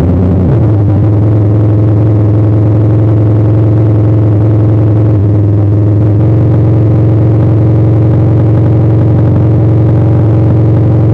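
The Pong Fong, a homemade Atari Punk Console–style synth built in a shoebox, with a Basic Stamp emulating its oscillators, droning a loud, low buzzing tone. Right at the start its pitch slides down as a knob is turned, and it then holds steady.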